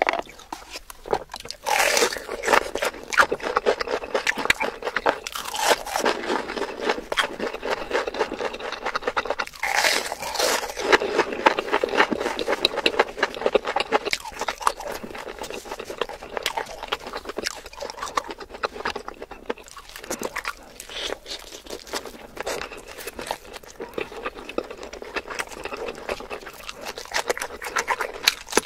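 Close-miked mouth sounds of a person biting into and chewing whole chicken: a dense run of crackles and wet clicks, with louder bites about two and ten seconds in.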